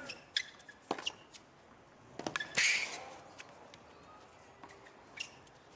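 Tennis rally on a hard court: sharp racket-on-ball hits and short sneaker squeaks, with one louder, noisier burst about two and a half seconds in.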